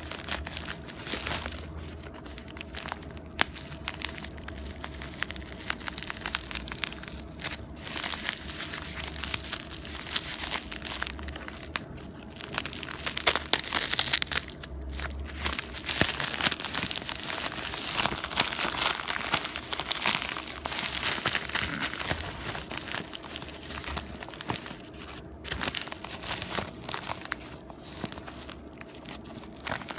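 Plastic bubble mailer being handled and torn open, its plastic crinkling and crackling with many small clicks. It is louder and busier through the middle.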